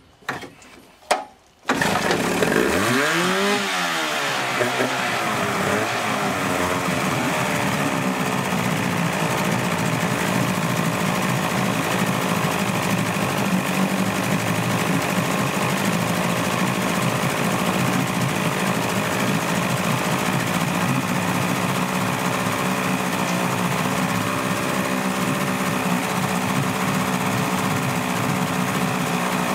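Mid-1980s Evinrude 35 hp two-cylinder two-stroke outboard catching about two seconds in. Its pitch swings up and back down for a few seconds, then it settles into a steady run. It starts despite low compression of about 90 psi per cylinder.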